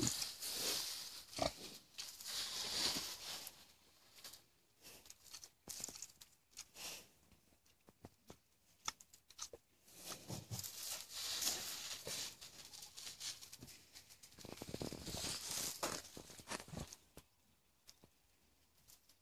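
Boar pig grunting in a few bouts with quiet gaps between, along with scuffing and small clicks in sandy dirt.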